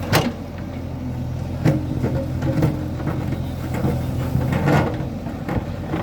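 JCB 3DX backhoe loader's diesel engine running steadily, with a few sharp knocks over it, the loudest right at the start and about a second and a half in.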